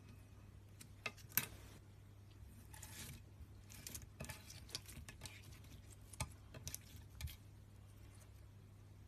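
Slime being handled: scattered soft clicks, pops and brief crackly rustles, the sharpest about a second and a half in, over a faint steady hum.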